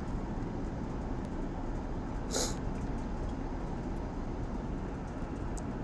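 Steady low rumbling background noise, with one short hiss about two and a half seconds in.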